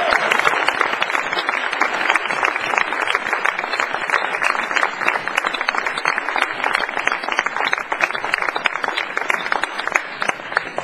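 Audience applauding: dense, steady clapping throughout.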